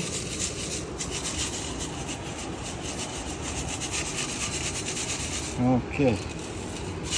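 Sand and gravel rasping against the mesh of a plastic classifier sieve being shaken over a gold pan, a steady scratchy hiss with a rapid shaking rhythm.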